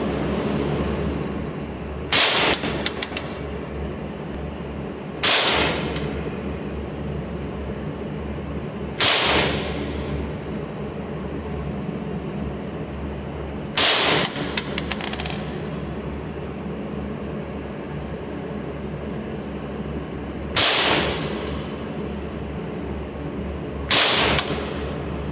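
Six single gunshots from a carbine, fired a few seconds apart in an indoor range booth, each with a short echoing tail and some followed by light clicks. A steady low hum runs underneath.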